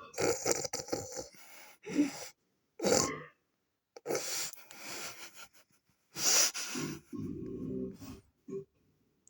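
A string of loud, breathy gasps and wheezes, then a low, croaking burp about seven seconds in.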